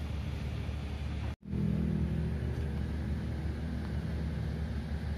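Steady low rumble of background noise, broken by a sudden moment of silence about a second and a half in, where the footage cuts.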